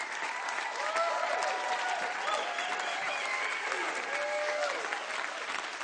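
Concert audience applauding, dense clapping with scattered cheers and shouts rising over it.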